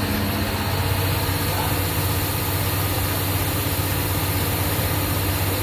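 Honing machine running steadily with a low hum, under an even hiss of compressed air escaping from the air-gauge plug in the honed bore.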